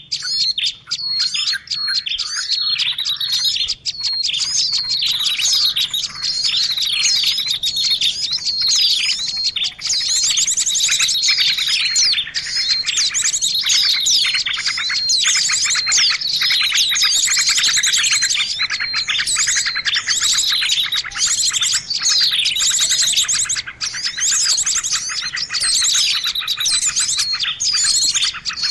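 Dense, busy chorus of many small birds chirping and trilling over one another without a break, a bird-lure recording made to draw small birds in.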